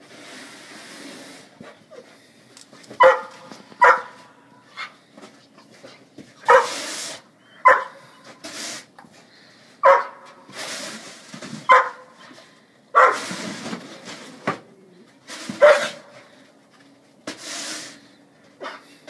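German shorthaired pointer barking in short, sharp barks, about seven loud ones spaced a second or two apart, excited during a snow-shovelling game. Between the barks come softer bursts of scraping noise from the snow shovel.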